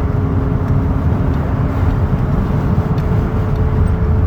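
Road noise of a moving car heard from inside the cabin: a steady low rumble of tyres and engine with a faint steady hum over it.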